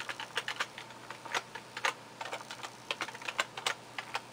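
Computer keyboard keys clicking in a quick, irregular run as a password is typed, about ten keystrokes.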